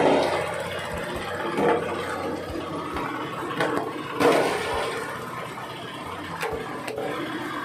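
Engine-driven coconut-husk shredder running steadily while chopping husk into cocopeat, with a few louder surges.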